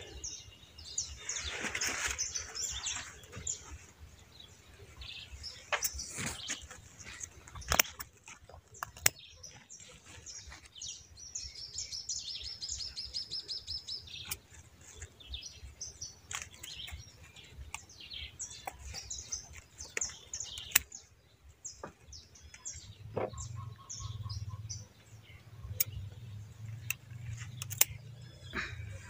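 Small birds chirping, with a rapid trill about twelve seconds in. Occasional sharp clicks are scattered through it, and a low hum comes in near the end.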